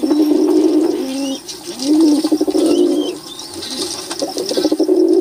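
Domestic pigeons cooing: repeated low, overlapping coos that rise and fall in pitch.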